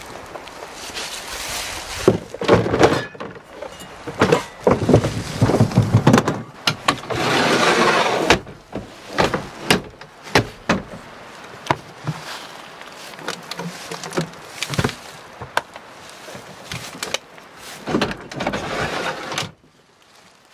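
Gear being handled in the back of a pickup: a run of knocks, clunks and clicks, with sliding rushes as truck-bed storage drawers and a fridge slide are pushed in and out, the longest about seven seconds in. The sounds stop about a second before the end.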